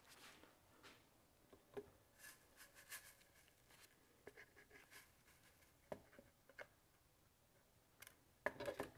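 Faint, scattered light taps and clicks of clear plastic containers being handled and set against a green plastic classifier sieve, with a louder cluster of plastic clatter near the end.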